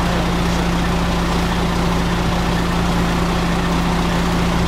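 Fire engine idling, a steady, unchanging engine hum with a constant low drone.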